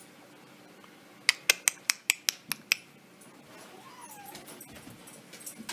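A dog and a cat play-fighting: a quick run of about eight sharp clicks, some six a second, then a faint, short falling cry.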